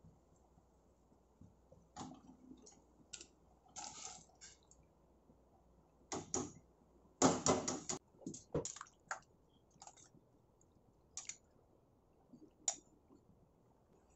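Cauliflower florets dropped into a stainless steel pot of hot water: a scatter of short splashes and knocks, the loudest cluster about seven to eight seconds in.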